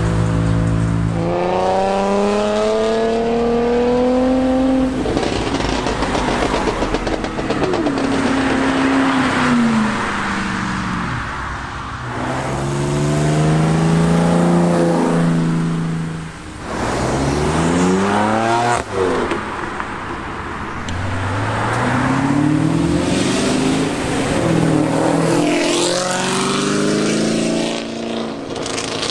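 Cars accelerating at full throttle, one pull after another. Each engine climbs in pitch through the gears, dropping briefly at each upshift, and there is one sharp crack near the middle.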